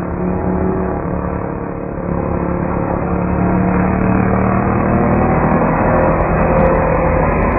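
Small motor-scooter engine running at steady high revs as the scooter ploughs through shallow river water. It grows louder as the scooter comes closer.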